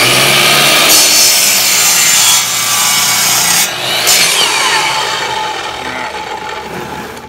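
Black & Decker miter saw running at full speed, its blade cutting through a wooden block for the first few seconds. After the cut the motor spins down, its whine falling in pitch and fading over the last three seconds.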